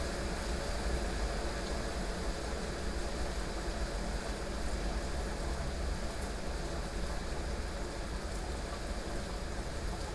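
Heavy rain falling steadily, an even hiss of rainfall with a constant low rumble beneath it and no distinct thunderclap.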